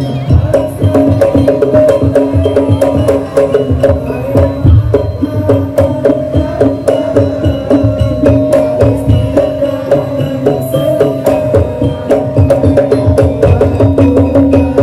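Daul Madura percussion ensemble playing: fast, dense drumming and wood-block-like strikes over a held melodic line.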